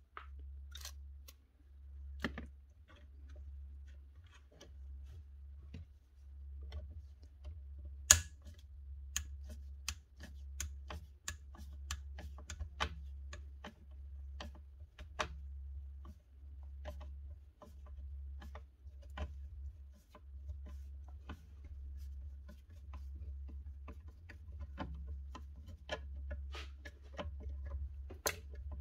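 Scattered clicks and taps of hand work with a screwdriver on the small screws and parts of an old power tool's cord clamp, one sharper click about 8 seconds in, over a low hum.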